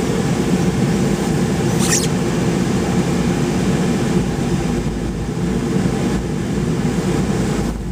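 Steady engine and road rumble of a car heard from inside the cabin while driving, with one short click about two seconds in.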